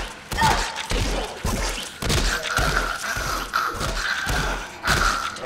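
Hand-to-hand fight sound effects: a rapid string of thuds and blows, about two a second. From about two seconds in, a rasping growl runs underneath them.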